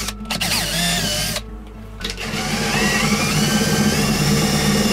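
Cordless drill boring holes through a panel: one run stops about a second and a half in, then after a short pause a second run starts with a whine that climbs in pitch and holds.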